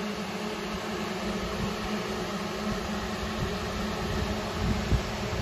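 Steady buzzing hum of about 200 light-show quadcopter drones hovering overhead together, like a massive swarm of bees. A brief thump near the end.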